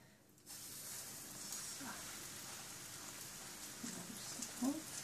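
A breaded parasol mushroom cap frying in hot ghee: a steady sizzle with fine crackling starts suddenly about half a second in as the cap goes into the pan.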